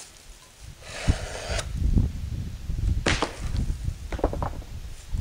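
Concrete slab being pulled away from a stack of concrete test blocks: a gritty scrape about a second in, then a sharp knock a little past the middle and a few lighter knocks, over a low rumble.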